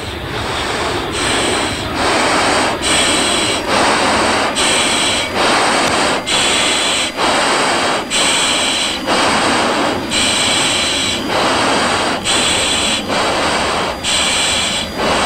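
F-16 pilot's heavy, rapid breathing in his oxygen mask, picked up by the mask microphone over the cockpit intercom: a hissing breath about once a second.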